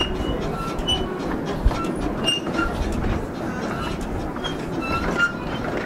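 Miniature steam railway train running along the track, heard from an open carriage: a steady rumble of wheels on rails, with clicks from the rail joints and short, high squeaks from the wheels on the curve.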